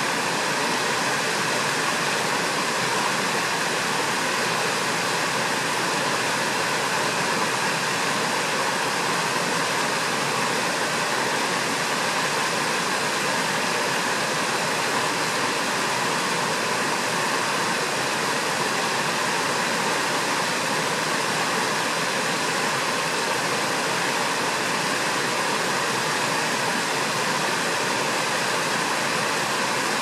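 Steady rushing noise of running water, unchanging throughout.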